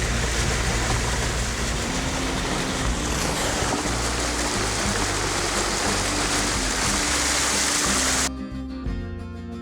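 Rushing floodwater, a loud steady wash of water noise, over background music; the water sound cuts off suddenly about eight seconds in, leaving the music alone.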